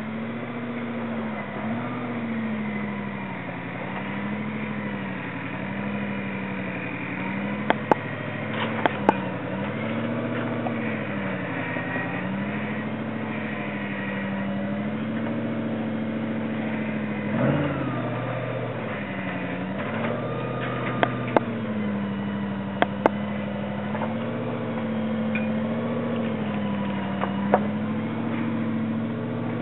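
Toyota Hilux's V8 engine crawling at low revs over creek rocks, its note rising and falling every couple of seconds as the throttle is worked, with a few sharp clicks.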